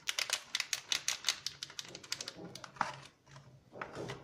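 A small packet of dried oregano being shaken and tapped over a glass bowl: a quick run of light clicks and crinkles for about two seconds, then a few single taps.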